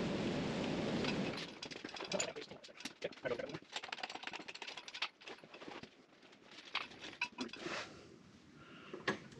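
A steady rushing noise that cuts off about a second in, followed by scattered light clicks and knocks of tools and metal parts being handled in a workshop.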